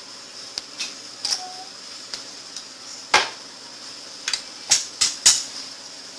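Sharp clicks and knocks of small tools and parts being handled on a workbench, the loudest about three seconds in and three quick ones close together around five seconds, over a steady high hiss.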